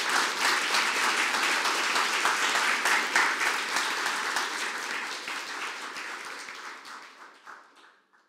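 Audience applauding, the clapping dying away over the last few seconds.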